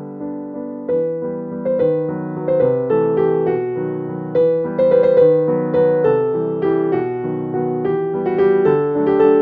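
Background music: a gentle piano melody, notes struck and left to fade.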